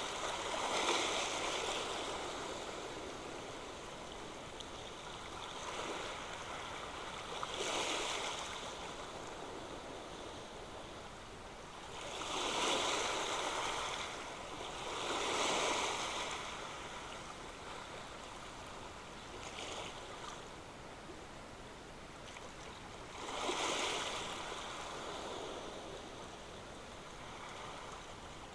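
Ocean waves breaking on the shore, swelling and fading every few seconds: five louder breaks over a steady wash of surf.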